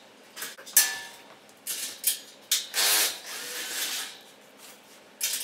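Clanks, clicks and scraping of hand work on a steel shipping crate as it is taken apart: a string of short knocks and rubbing noises, the longest a scraping burst about three seconds in.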